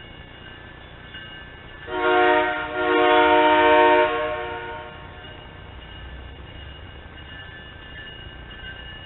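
Diesel locomotive horn, an MP36/HSP46-type commuter locomotive (HSP46 2007), sounding two blasts about two seconds in, a short one then a longer one, fading out over the next second. A faint steady rumble with thin high tones runs underneath.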